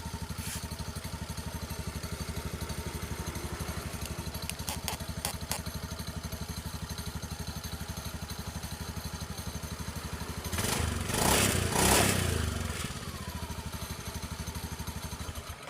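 A motorcycle engine idling with an even, pulsing beat. It is revved briefly about two-thirds of the way through, then drops back to idle. This is the demonstration of a jingling rattle ('krincing krincing') from the fan belt (drive belt) area.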